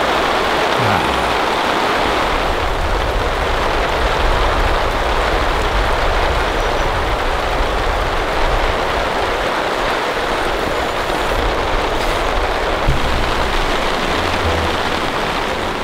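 Heavy rain pouring down, a loud steady dense hiss, with intermittent low rumbles underneath.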